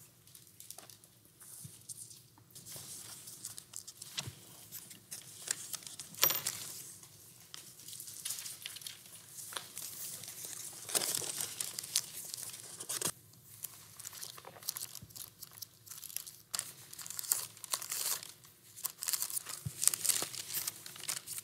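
Thin Bible pages rustling and crinkling as they are leafed through and turned, with small irregular paper clicks and swishes.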